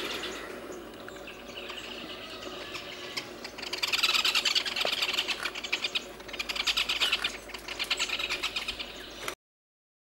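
A babbler's loud, rapid chattering calls in two bouts starting about four seconds in, over fainter birdsong; the sound cuts off suddenly near the end.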